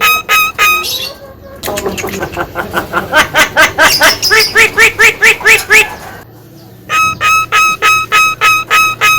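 Javan myna (jalak kebo) calling loudly: a run of evenly repeated harsh calls at about four a second, then a fast series of short rising notes that grows louder. After a brief lull the repeated calls start again.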